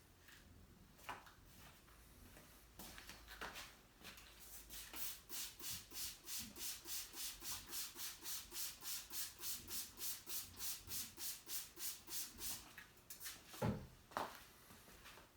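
Rapid back-and-forth rubbing strokes, like sanding by hand, about three or four a second for roughly eight seconds, then a single knock.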